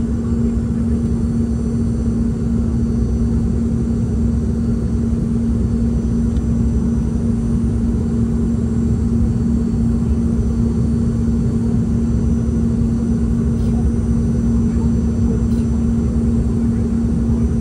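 Steady cabin drone of a Boeing 717 with its rear-mounted Rolls-Royce BR715 jet engines, a low rushing noise with a constant hum running through it.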